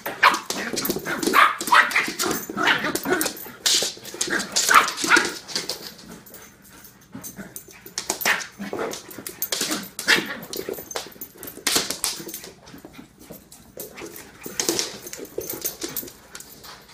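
A puppy and a big poodle playing, with repeated short barks and yips mixed with scattered sharp clicks. The calls are busiest over the first six seconds and come again near the end.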